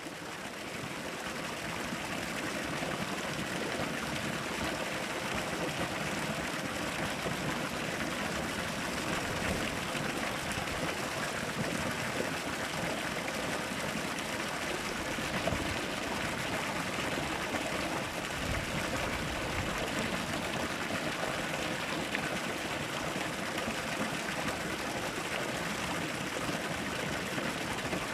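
Flowing stream water babbling steadily, fading in over the first couple of seconds.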